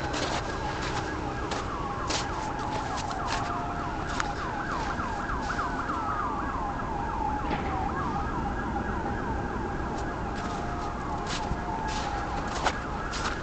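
Emergency vehicle siren sounding, with a slow wail rising and falling in pitch overlaid by a fast repeating warble (yelp). Scattered sharp clicks are also heard.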